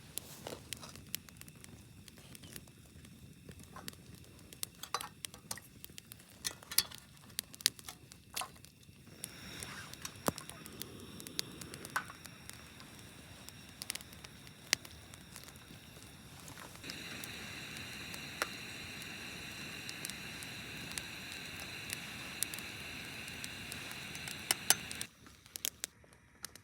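Wood campfire crackling with irregular sharp pops. About two-thirds of the way through, a steady hiss joins in, then stops abruptly near the end.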